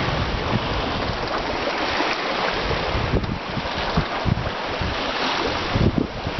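Wind buffeting the microphone in irregular gusts over a steady rush of water along the hull of a sailboat under sail.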